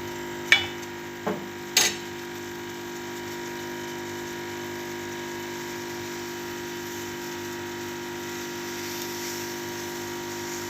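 A spoon clinking three times against a metal cooking pot in the first two seconds, then a steady hum.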